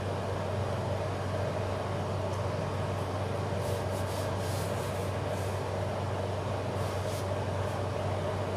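Steady low hum of background room noise, with a few faint brushing strokes of hands smoothing a sheet of paper flat onto another from about three and a half to seven seconds in.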